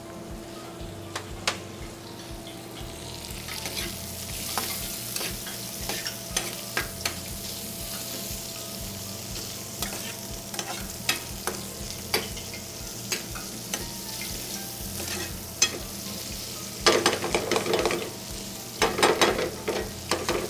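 Chorizo criollo frying in hot oil in a metal sauté pan, sizzling steadily while a long metal spoon stirs it and clicks against the pan. Two bursts of quick metal clatter from spoon and pan come near the end.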